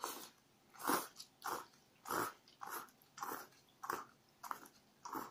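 A person slurping instant udon noodles from a cup in a series of about nine short sucking slurps, roughly two a second.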